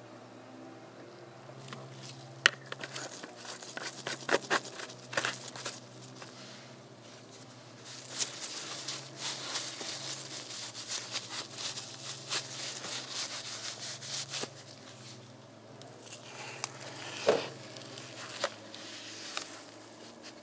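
A paper towel rubbing and crinkling against the cap and neck of a plastic motor-oil jug for several seconds in the middle. Before and after it come sharp clicks and taps as the plastic jug and its screw cap are handled.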